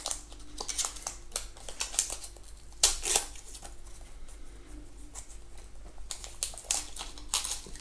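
Protective wrapping being picked at and peeled off a small plastic phone charger by hand: irregular crinkles and small clicks, the loudest a little under three seconds in.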